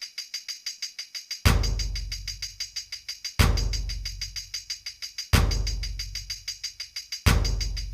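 Background music: a fast, even tambourine-like shaker rhythm with a heavy bass hit about every two seconds.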